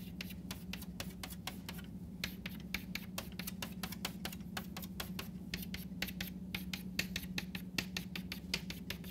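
Chalk on a blackboard: a quick run of short, sharp chalk strokes and taps, several a second with brief pauses, as crosses are marked one after another.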